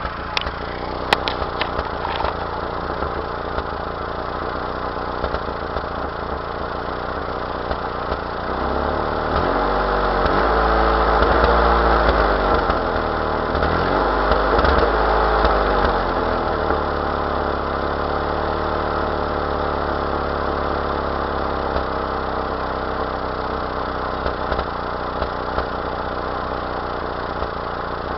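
1992 Mazda B2600 pickup's 2.6-litre four-cylinder engine running with a misfire. It idles steadily, is revved up and down twice from about a third of the way in, and settles back to idle.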